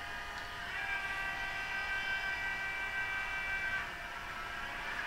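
Sound decoder (ESU LokSound 4.0) of a Piko BR 216 H0 model diesel locomotive playing its start-up sound: a steady whine of several high tones comes in about half a second in and stops at about four seconds, and a rushing noise begins to build near the end.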